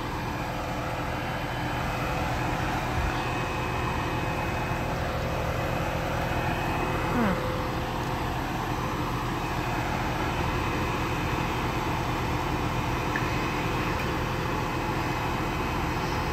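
Steady low mechanical drone of an idling engine, with an unchanging hum under it.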